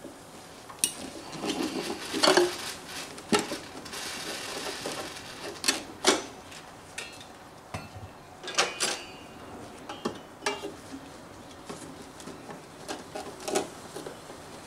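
Irregular clinks, knocks and scraping of metal tools being handled and worked at a hollow-body electric guitar's neck joint.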